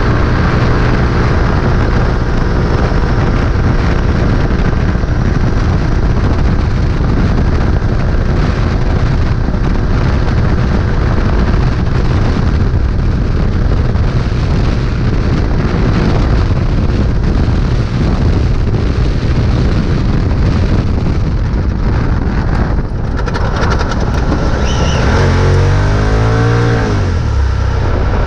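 Polaris RZR side-by-side racing off-road at speed: the engine runs hard under a steady noisy wash of wind and terrain. About three seconds before the end, the engine note drops and climbs again.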